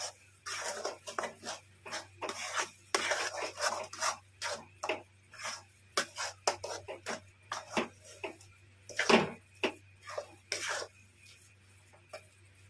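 Metal spatula scraping and knocking against a metal kadhai as a crumbly khoya and roasted semolina mixture is stirred. The strokes come quick and irregular, with one louder knock about nine seconds in, and thin out near the end.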